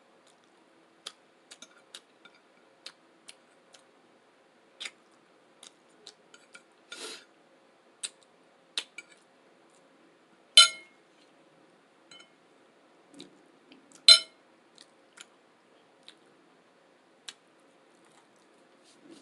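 Cutlery tapping and scraping on a plate: many small sharp clicks, and two much louder ringing clinks in the second half.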